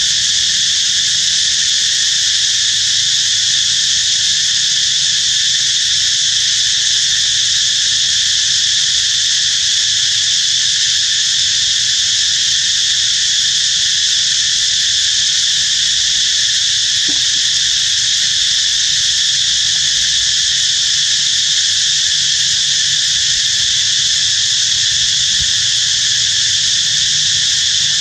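Steady shrill insect chorus in the forest, an unbroken drone that holds the same level, with a faint low hum beneath.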